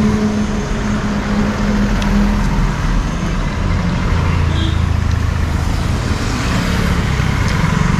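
Steady road traffic: vehicle engines running, with a low engine drone for a couple of seconds in the middle.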